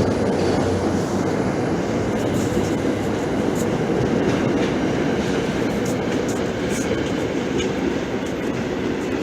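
A train running on the rails: a steady running noise with a few faint wheel clicks.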